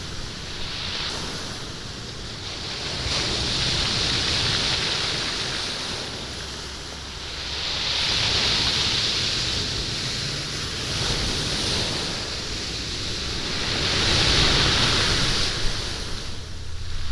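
Waves washing up a stony beach and drawing back, rolling the stones. The surf comes in slow surges that swell and fade, peaking three times, with a few sharper crackles near the end.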